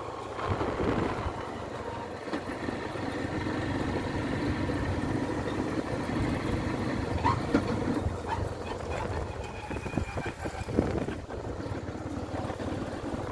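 A 150 cc motorcycle engine running steadily while riding along a dirt road, with a few knocks and rattles in the second half.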